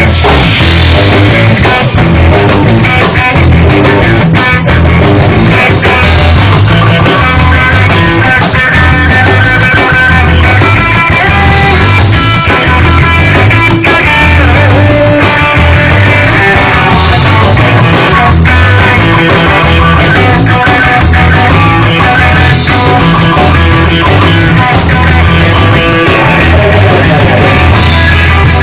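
Live instrumental rock band playing loudly: electric guitar lines over bass and drums, recorded through a phone's microphone.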